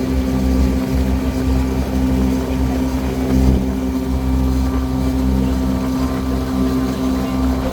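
Cruise boat's engine running steadily, a constant low drone with no change in revs.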